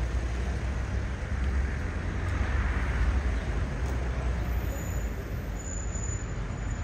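Street traffic: a steady rumble of road noise, with a vehicle passing by about two to three seconds in.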